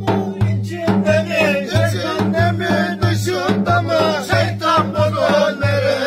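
Live Turkish folk dance tune: a davul beats a steady rhythm of about three strokes a second, a cümbüş is strummed, and men sing over it.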